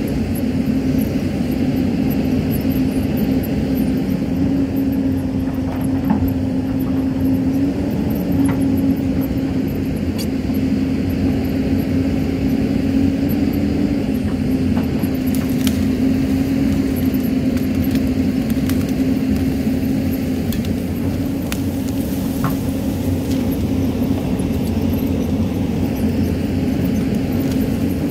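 Hyundai crawler excavator's diesel engine running steadily while the bucket digs into the hillside, a constant hum whose pitch lifts slightly a couple of times as the hydraulics work. A few faint ticks of soil and stones are heard.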